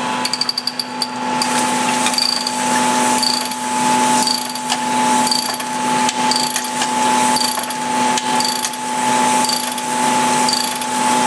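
A cylinder honing machine hones a VQ35 cylinder bore through a bolted-on torque plate with a steady motor hum. A short high chirp and a slight swell in loudness come about once a second, after a quick run of ticks in the first second. This is the coarser-stone stage, taking the bore from just under 1.5 thou toward about 1 thou before the final stone goes in.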